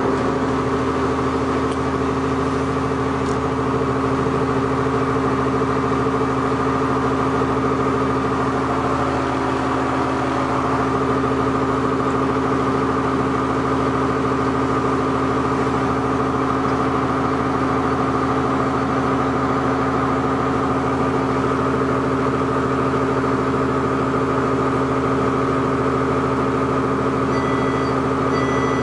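New Flyer D40LF diesel transit bus idling steadily: a low engine drone with a steady higher whine over it. Near the end, a series of short high electronic beeps starts.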